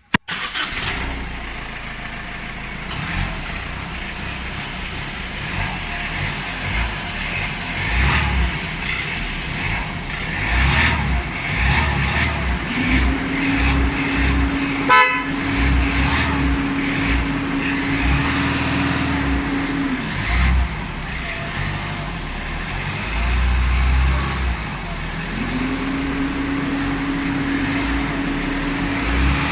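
Road traffic with engines running and car horns honking: a short horn blast about halfway through, and a long steady low horn note held for several seconds twice.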